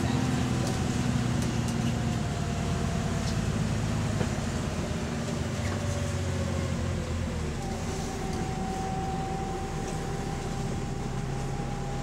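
Bus engine and drivetrain heard from inside the passenger saloon: a low drone with a whine that slowly falls in pitch, then a steadier whine from about eight seconds in, the whole getting gradually quieter. The bus has an exhaust leak.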